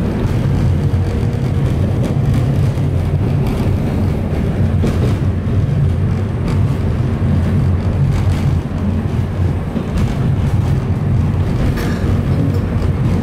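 Inside a moving narrow-gauge Alishan Forest Railway carriage: a steady low rumble of wheels on the track, with faint occasional clicks.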